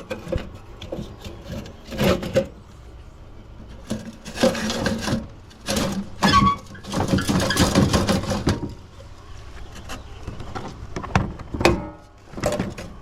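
Clattering, knocking and scraping of a coffee maker's housing and parts being worked apart by hand, in several irregular bursts.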